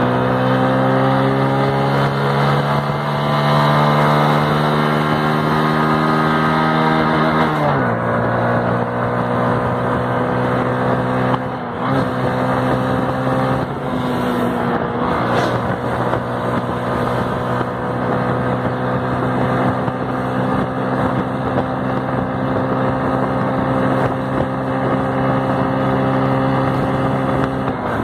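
Hero Glamour's 125 cc single-cylinder four-stroke engine pulling under full acceleration, its pitch climbing steadily. The pitch drops sharply once about eight seconds in at an upshift, then climbs again and holds near top speed.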